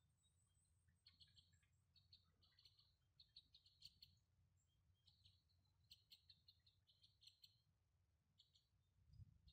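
A flock of two-barred crossbills calling faintly in the spruce tops: short high chirps in quick runs, with a low thump near the end.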